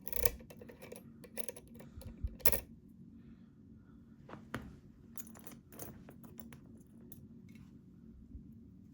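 Small metallic clicks and clinks of a Ruko 600 lock and metal tools being handled, thickest in the first few seconds and sparser after.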